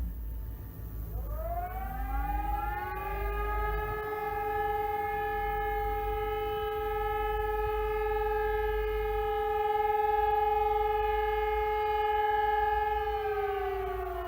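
Civil-defence siren test, with an E57 motor siren and an EPS 600 siren: the siren winds up about a second in and rises to a steady held tone, then begins to wind down near the end. It is a steady blast of the kind used in the monthly siren test.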